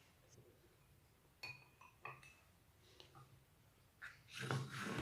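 A knife cutting a garlic clove into small pieces against a plate: two light clinks of the blade on the plate, then louder chopping and scraping near the end.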